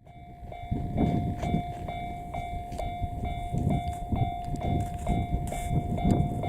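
Japanese railway level-crossing warning bell ringing, a steady electronic tone repeated a little over twice a second, over a low rumble.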